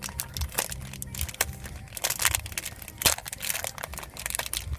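Wrapper of a football card pack crinkling and crackling as it is torn open by hand, in irregular crackles with a sharper snap about three seconds in.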